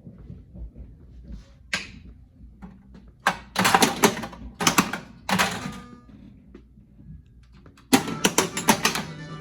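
Williams Big Guns pinball machine being played: clusters of sharp mechanical clacks from flippers, solenoids and the ball striking targets over a low steady hum from the machine. Near the end come the game's electronic tones.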